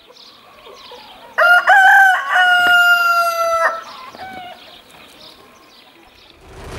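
Rooster crowing once, starting about a second and a half in: a stepped cock-a-doodle-doo ending in a long held note that falls slightly in pitch. A brief, softer call follows a little later.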